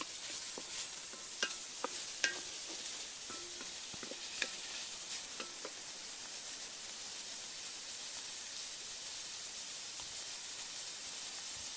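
Minced pork frying and sizzling in a metal wok, with a spatula scraping and clinking against the wok a few times in the first half, then a steady sizzle.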